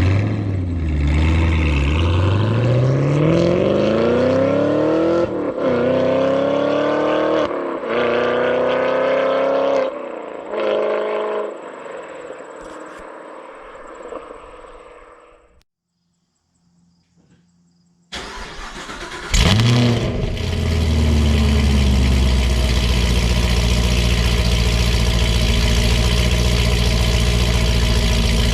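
2018 Chevrolet Camaro SS 1LE's 6.2-litre LT1 V8, fitted with aftermarket headers, accelerating hard through the gears, with the pitch climbing in each gear and dropping at each upshift, then fading away. After a short break, the V8 starts with a sharp rev and settles into a steady, deep idle.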